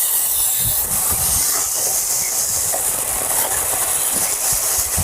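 Battery-powered Temu chainsaw running, its chain cutting through a tree: a steady hissing buzz.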